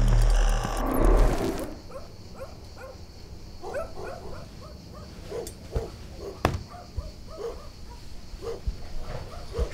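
Music plays and cuts off about a second and a half in. Then a dog barks over and over, faintly, with one sharp click past the middle.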